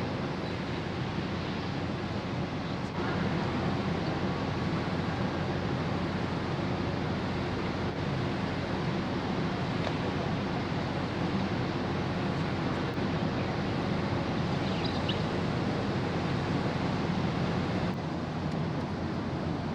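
Steady noise of a large car ferry under way: a low engine drone under a rushing wash of wind and water.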